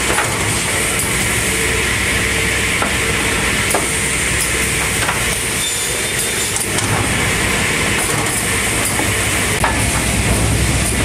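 Reinhardt cross-cut saw line and stacker running: a steady, loud machinery noise with a low hum and a hiss, broken by a few sharp knocks as wooden beams are handled on the conveyor.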